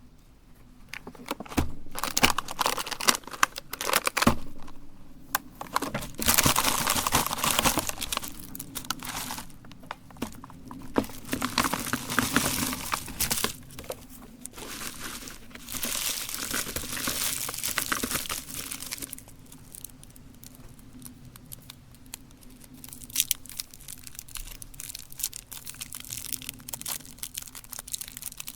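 Candy wrappers crinkling and tearing in irregular bursts as they are handled and opened, busiest in the first two thirds and softer after that.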